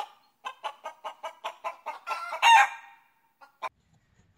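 Chicken clucking: a quick run of short clucks, about six a second, then one louder, longer cackle, and two more single clucks.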